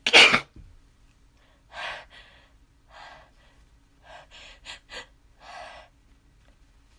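A loud sneeze right at the start, just after a quick rising intake of breath, then a series of shorter, quieter breaths.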